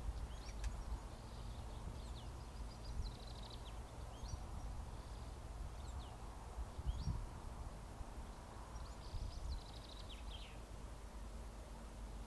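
Small birds chirping and trilling now and then, over a low steady rumble of outdoor background noise.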